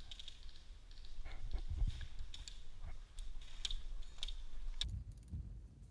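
Irregular light clicks and ticks over a low rumbling noise, with one sharp click near the end.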